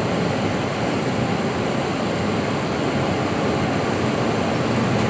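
Steady rushing noise of a passenger train moving through the station, with no distinct wheel clicks or horn.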